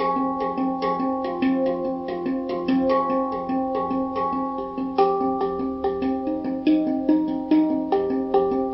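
Handpan music: a quick, even run of struck, ringing metal notes over low repeating notes, with stronger strokes from about five seconds in.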